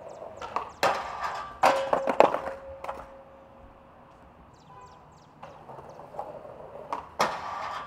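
Skateboard clacking and knocking against the ground several times in the first three seconds, then wheels rolling with another sharp knock near the end.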